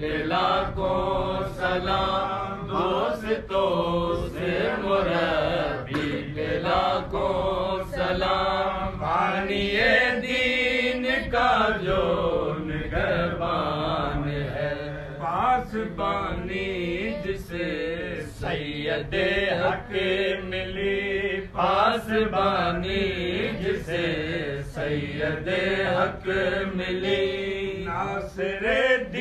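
A man chanting a qasida, a devotional poem, in long, held melodic phrases, unaccompanied.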